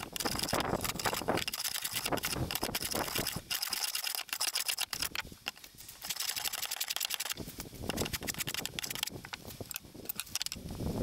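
Hand bench plane cutting wood in a run of short rasping strokes, with knocks of the plane and workpiece on a wooden workbench.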